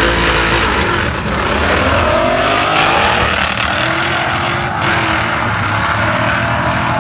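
Race car engines running loudly, with the engine pitch rising several times as they rev.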